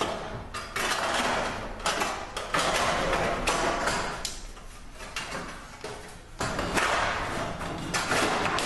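A flat metal bracket piece being slid and worked into place against an aluminium beam, scraping and clattering in several bouts of about a second each.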